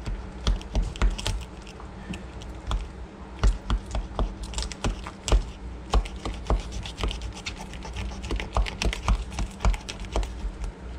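Knife cutting into a rock bass behind the rib cage on a plastic cutting board: irregular sharp clicks and scrapes of the blade working through the fish.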